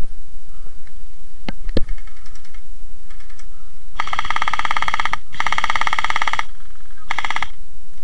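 Electric gel blaster rifle firing on full auto: two bursts of about a second each, then a short burst near the end, each a rapid rattle of shots over the whir of the gearbox. Two sharp clicks come shortly before the first burst.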